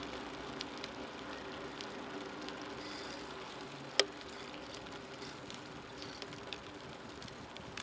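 Bicycle rolling along an asphalt path: steady rolling noise with a few faint ticks, and one sharp click about four seconds in.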